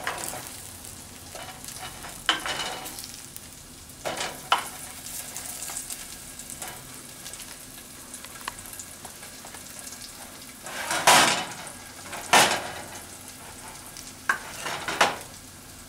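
Garlic and diced onion sizzling steadily in a stainless steel pot while chunks of roasted butternut squash go in, with a few sharp knocks and clatters in the pot. The loudest two come about two-thirds of the way through.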